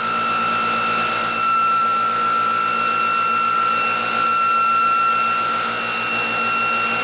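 Electric motor test rig spinning: a steady high-pitched whine with overtones over a low hum and a noise haze, getting slightly louder about a second in.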